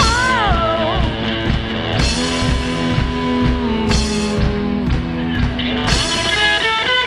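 Rock music with a drum kit keeping a steady beat under guitar, and a voice sliding through a sung line near the start.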